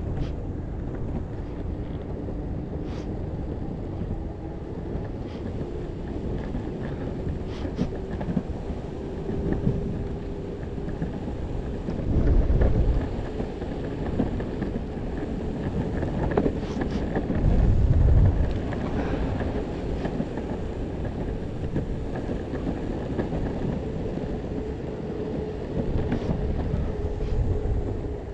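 Possway T3 electric skateboard riding: wheels rumbling on the pavement with a faint steady motor hum, and wind buffeting the microphone, loudest in two gusts around the middle.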